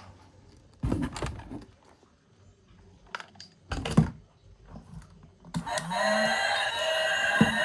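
Plastic toys knocked and clattered a few times, the loudest knock about halfway through. Then, about three-quarters of the way in, a loud steady sound with many tones starts suddenly: a toy's built-in sound effect.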